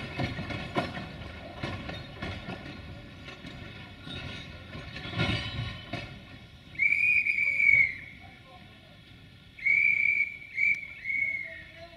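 Narrow-gauge steam locomotive 764.469 rolling slowly, its wheels knocking over rail joints. It then sounds its steam whistle: one blast of about a second, and a couple of seconds later a burst of three short blasts in quick succession.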